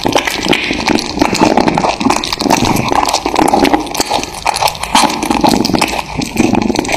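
Kittens chewing and gnawing raw meat close to the microphone: a dense run of irregular wet clicks and smacks.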